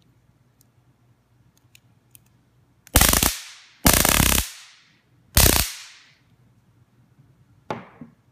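Flashlight stun gun firing across its electrodes in three short bursts of loud, rapid electric crackling, each about a third to half a second long. Faint clicks come before the bursts, and a softer knock comes near the end.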